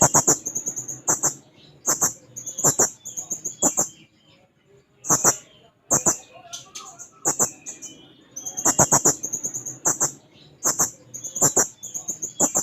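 Hanging parrot (serindit) calling persistently: shrill, sharp single notes and quick rattling trills of repeated notes, coming in bursts about every second with short pauses between.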